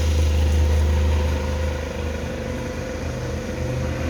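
A steady low engine rumble with a faint steady hum over it, easing a little about two seconds in.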